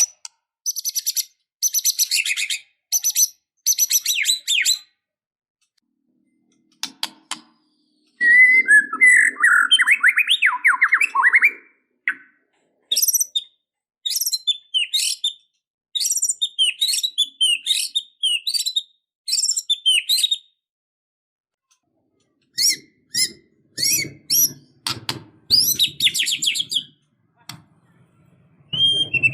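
White-rumped shama (murai batu) singing in bursts of fast, varied whistled and chattering phrases, with pauses of a second or two between them. One phrase about a third of the way in is lower and rougher than the rest.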